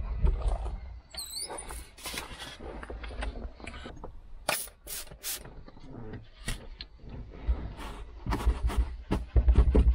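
A hand trigger spray bottle giving a few quick hissing sprays of cleaner onto the inside of a windscreen, then a cloth rubbing on the glass as it is wiped. A few short high squeaks about a second in, and handling knocks and rustles throughout.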